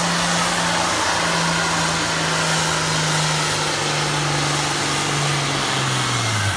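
Farm tractor engine running hard under load, pulling the weight sled in a tractor pull; its engine note holds steady, then falls near the end as the tractor bogs down and slows.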